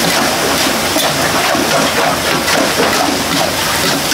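Steady rushing noise of a restaurant kitchen at work, with faint voices underneath.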